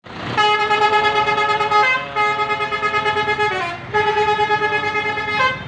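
Bus telolet horn, a Basuri multi-trumpet air horn, sounding three long blasts. Each blast holds a steady chord for about a second and a half, then steps or slides to another pitch just before it stops.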